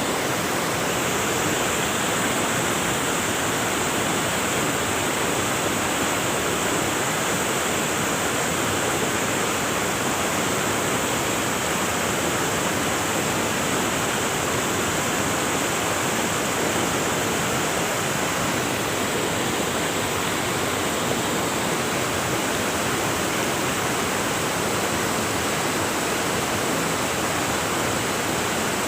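River water rushing over rocks, a steady, even rush without pauses or distinct splashes.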